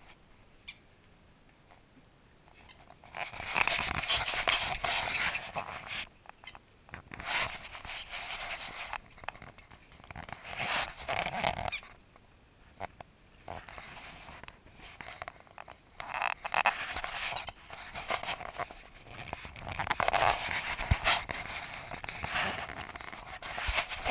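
Rubber squeaky dog toy squeaked over and over as an Australian shepherd puppy chews it, in repeated bursts from about three seconds in, mixed with rubbing and rustling from dog fur brushing against the microphone.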